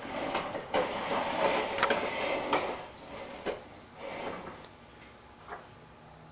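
Plastic toddler push walker rolling and rattling over a hardwood floor for the first few seconds, then a few separate light knocks as it slows and stops.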